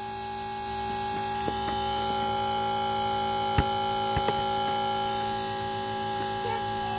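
Battery-powered electric transfer pump running steadily with an even hum, pumping purified engine oil from a drum into a truck's fuel tank. A single sharp knock about halfway through.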